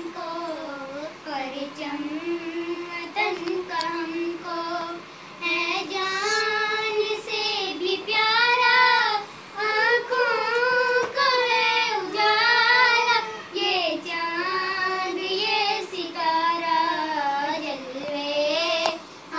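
A child singing alone without instruments, holding long wavering notes in phrases with short breaks, the pitch climbing higher in the middle of the song.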